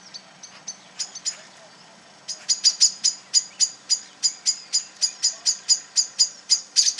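Small birds giving sharp, repeated alarm calls: a few scattered ones at first, then a fast even run of about four a second from a little over two seconds in. This is the scolding of birds mobbing a cat.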